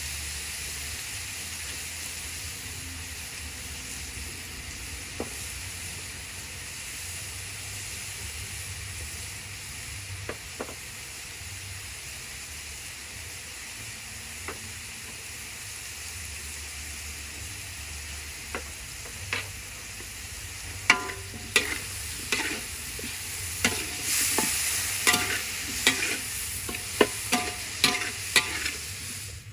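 Diced pork and garlic sizzling steadily in a hot wok. In the last ten seconds a wooden spatula stirs the meat, with a quick run of sharp scrapes and knocks against the wok.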